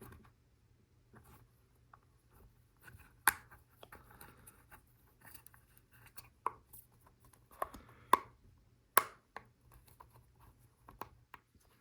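Lego Technic parts handled by hand: half a dozen sharp plastic clicks and knocks with soft rustling between, as a rubber tyre is worked onto a plastic rim.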